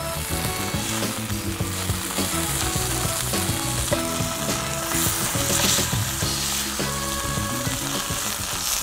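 Steaks searing in a very hot frying pan, a steady sizzle of fat.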